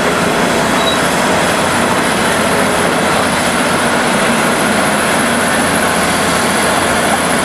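Komatsu D375A crawler bulldozer working, its large diesel engine and running gear making a loud, steady machine noise as it pushes a load of rock and earth.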